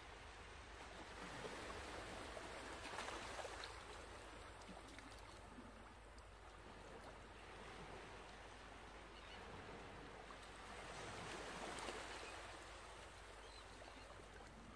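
Faint rustling and scraping of denim fabric being trimmed with fabric scissors and handled, swelling a second or two in and again past the middle.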